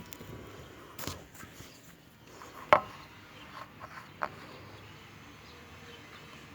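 A few scattered knocks and clicks in a quiet room, the sharpest a little under halfway through.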